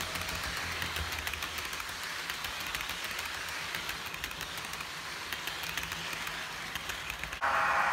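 Model commuter train's bilevel coaches rolling past on the layout track, wheels clicking rapidly over the rails, with a low motor hum that fades about a second in. Near the end the sound switches abruptly to a louder steady whir.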